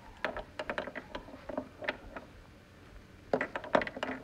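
Wooden toy railway pieces and figures being handled and set down: a run of light clicks and taps in small clusters, the loudest bunch about three seconds in.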